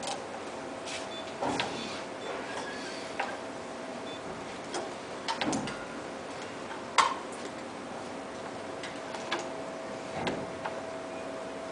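Small tracked robot's arm mechanism and servos giving off irregular light clicks and ticks over a faint steady whine, the sharpest click about seven seconds in.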